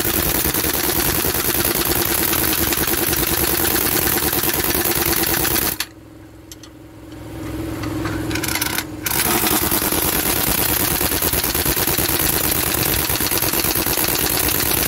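Cordless impact wrench hammering on a bolt on a logging machine's boom-cylinder pin: two long bursts of fast rattling, about six and seven seconds each, broken by a pause a little before the middle.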